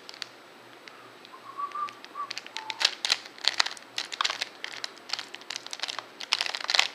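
A 3x3 Rubik's cube being turned by hand: rapid plastic clicking and clacking of the layers as a sequence of moves is executed. It starts about three seconds in and comes in quick runs of turns.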